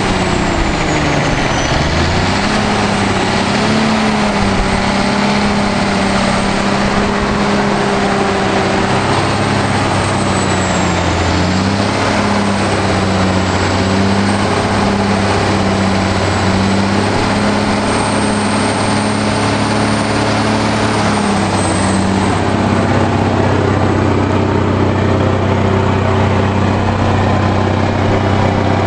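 Autocar truck's turbocharged diesel engine running at a steady idle, its pitch dipping briefly about a second in and then settling.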